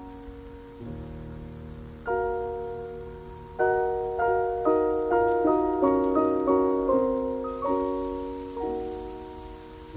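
Slow piano music: chords struck and left to ring, quickening to a note about every half second from about three and a half seconds in, then slowing again near the end.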